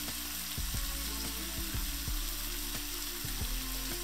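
Chopped onion and Italian pepper sizzling in a pan on high heat with white wine just added, the wine bubbling away to cook off its alcohol, with many small pops. A spoon starts stirring the pan near the end.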